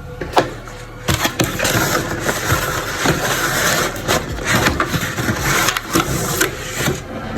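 Plastic camera packaging crinkling and rustling as the camera is unwrapped, with scattered sharp clicks and knocks; it starts about a second in and keeps going until just before the end.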